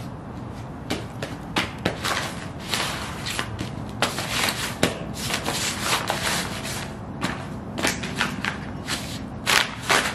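Ugg boots stomping and shuffling on loose magazine pages over concrete: irregular crinkling and crumpling of glossy paper with soft thuds underfoot, several a second, loudest near the end.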